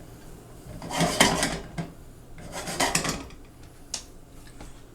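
A utensil scraping and stirring diced ham, green peppers and onions around a frying pan, in two bouts, with a short click from utensil on pan near the end.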